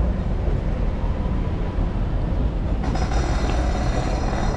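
A vehicle's steady low rumble with road or rail noise. About three seconds in, a brighter hiss and faint high tones join in.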